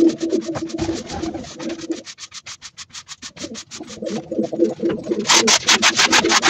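Pigeons cooing over the scratch of a broom sweeping a concrete loft floor; the cooing pauses for a second or so in the middle. About five seconds in, electronic music comes in over it.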